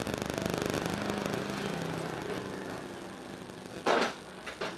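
Hand-handling noise on a workbench: a rattle that fades over the first few seconds, then one sharp knock about four seconds in and a lighter one near the end, as the reassembled fan motor is worked and let go.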